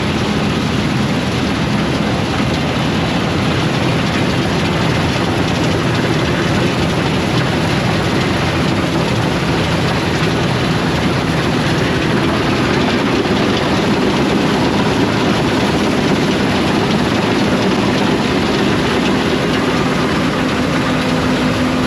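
Heavy farm machinery's diesel engine running steadily under load, with a loud, even mechanical din.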